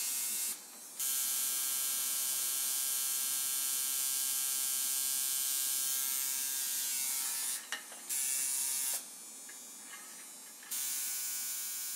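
Tattoo machine buzzing steadily, cutting out and starting up again three times: briefly about half a second in, briefly at about seven and a half seconds, and for nearly two seconds from about nine seconds in.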